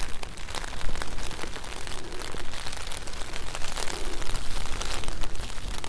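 Rain pattering on the tarp close overhead, a dense, irregular patter of drops, with a steady low wind rumble underneath.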